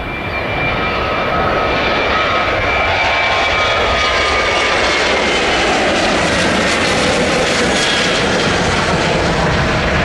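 Boeing 737 airliner's twin turbofan engines at takeoff thrust as it lifts off and climbs away: a loud, steady jet roar that builds over the first second or so, with a thin engine whine that slowly falls in pitch.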